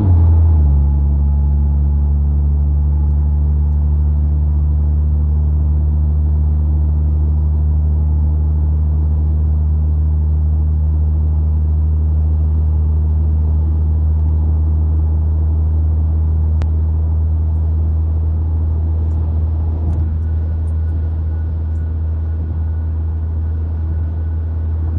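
Hemi V8 engine heard from inside the car, dropping in pitch about half a second in as the transmission upshifts, then a steady low drone at highway cruise around 1,500 rpm.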